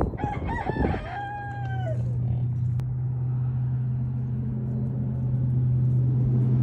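A rooster crows once, a drawn-out call that falls in pitch at its end. Under it and after it runs a steady low hum.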